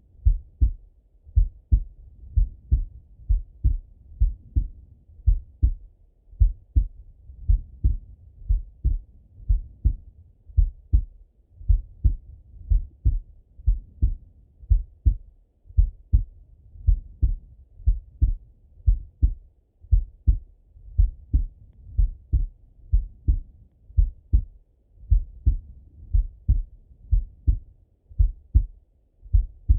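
A man's heartbeat heard through a Littmann stethoscope: a steady run of paired low lub-dub thumps at a slow resting rate of about one beat a second.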